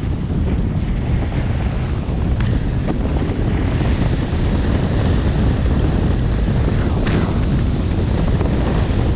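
Heavy wind buffeting on a GoPro HERO7 Black's microphone while riding fast downhill on a snowboard, a steady deep rumble. The hiss and scrape of snowboard edges carving through snow comes and goes, most clearly around two and a half seconds in and again about seven seconds in.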